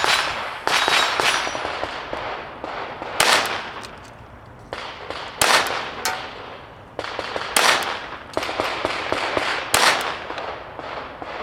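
Glock 44 .22 LR pistol firing a slow string of single shots, about a second or two apart. Each shot is a sharp crack with a short ringing tail.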